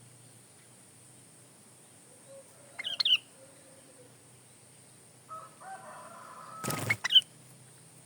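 Sooty-headed bulbul (kutilang) giving short chirping calls, one cluster about three seconds in and more near the end, with a brief loud rustling burst just before the last, loudest chirp.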